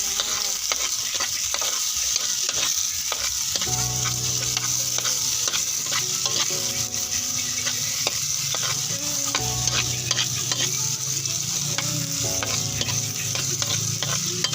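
Garlic, onion and tomato sautéing in hot oil in a pan, sizzling steadily, with a spatula clicking and scraping against the pan again and again as the mixture is stirred.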